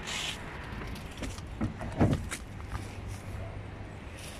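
Child sliding down a plastic spiral slide: a brief rubbing hiss as she sets off, then a few dull knocks of her body against the plastic about two seconds in, over a low steady hum.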